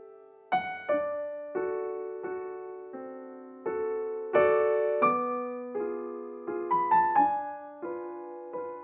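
Background music: a slow, gentle piano piece, with notes and chords struck a little less than a second apart, each left to ring and fade.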